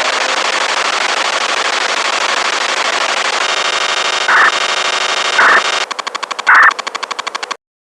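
Radio hiss from an Alinco DJ-X81 wideband receiver after the disaster-radio chime ends, with digital-signal interference breaking in: buzzing tones from about three and a half seconds in, three short louder blasts, then a rapid pulsing buzz about ten times a second before the sound cuts off suddenly near the end.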